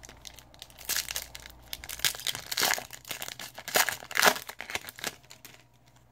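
A trading-card pack's foil wrapper being torn open and crinkled, a run of crackling and tearing from about a second in that is loudest near the end and then stops.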